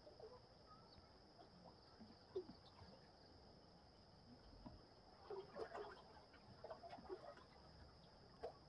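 Near silence: a faint steady high-pitched hiss with a few soft scattered ticks and chirps, a little busier past the middle.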